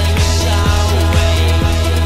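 Background music with a steady beat, about two beats a second, over a heavy bass.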